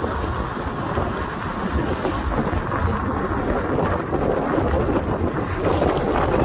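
Wind buffeting a microphone held out of a moving car's window, a heavy, uneven rumble, mixed with the car's road noise.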